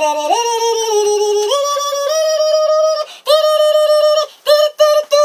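A singing voice holding long notes that step upward in pitch several times, with a brief break about three seconds in, then short quick choppy notes near the end.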